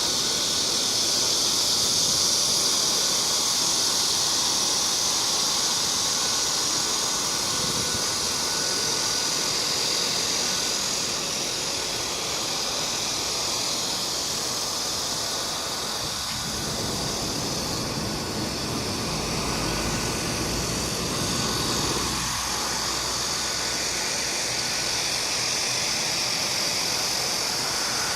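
Cicadas calling in a steady, shrill, continuous buzz that is loudest in the first several seconds, over a low rumble of city traffic that swells partway through.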